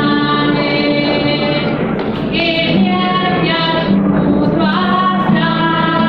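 Music with high voices singing long held notes, moving to new notes about two seconds in and again near five seconds.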